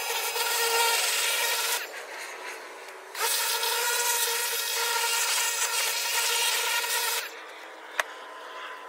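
Pressure washer spraying, a loud hiss of the water jet over a steady pump whine, in runs as the trigger is held and let go. It cuts off about two seconds in, comes back a second or so later for about four seconds, then stops again, with a sharp click near the end.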